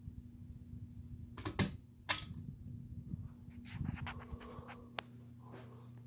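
A 32-inch Hampton Bay Minuet II ceiling fan's motor hums steadily. Over it comes the handling of the fan's light pull chain: two sharp clicks about half a second apart, a second and a half in, then lighter clicks and rattling until near the end.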